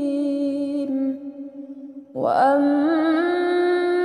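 A woman's solo melodic Qur'an recitation. She holds the last drawn-out vowel of a verse ending, with a wavering ornamented pitch, until it fades about a second in. After a brief breath pause she starts the next phrase on a long, steady held note about two seconds in.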